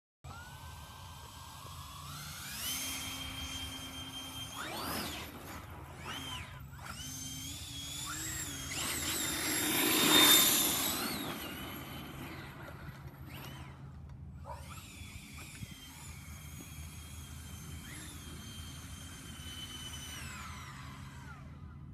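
Electric RC car with an electric ducted fan (EDF) jet on 9S LiPo power: a high whine that glides up and down with the throttle. It is loudest about ten seconds in, where a rushing noise joins the whine.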